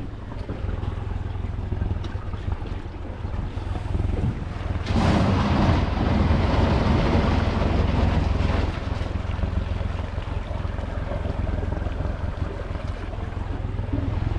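Boat under way, its Honda outboard motor running steadily, with wind buffeting the microphone. A louder rush of wind and water comes in about five seconds in and eases off about four seconds later.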